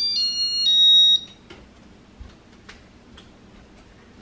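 Electronic beeper of the Casablanca ceiling fan's control playing a short tune of high tones that step up and down in pitch, ending about a second in. Then only the fan's faint steady running hum with a few light ticks.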